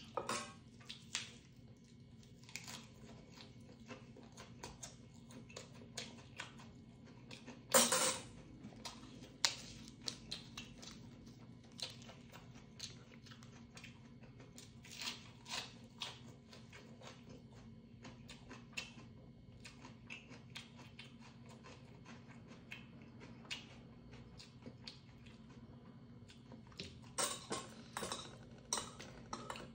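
A metal spoon clinking and scraping against a stainless steel bowl while eating, with chewing between. The loudest clatter comes about eight seconds in, and a quick run of clinks comes near the end, over a faint steady low hum.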